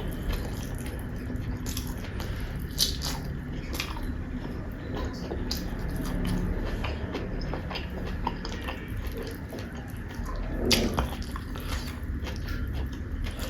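Close-miked eating: chewing and biting, with scattered short crunches and clicks.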